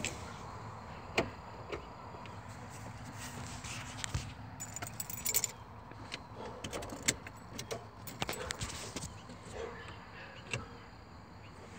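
Keys jangling briefly about five seconds in, among scattered sharp clicks and light knocks from handling the controls inside a pickup truck's cab while trying the headlight switch.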